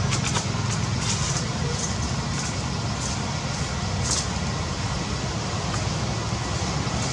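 Steady low outdoor rumble with a wide hiss over it, and brief high-pitched ticks now and then.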